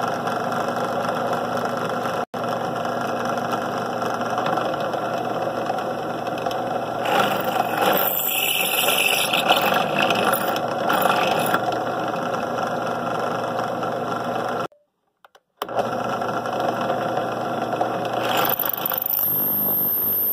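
Drill press motor running steadily while the bit bores into a stainless steel dome. A high squeal from the bit cutting the hard steel comes in bursts from about seven to eleven seconds in and again near the end. The sound breaks off for about a second past the middle.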